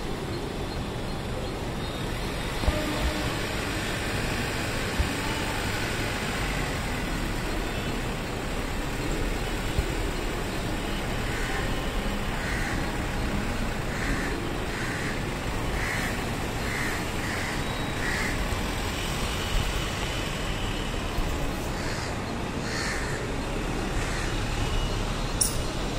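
Steady street traffic noise with a low engine hum, and a bird cawing in a run of about ten short calls in the middle, with a few more near the end.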